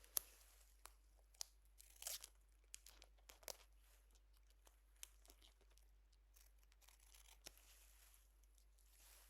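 Adhesive wound-closure strips being cut and handled close to the microphone: faint, scattered snips, crinkles and sticky peeling, with a small cluster of sounds about two seconds in and sparser ones after.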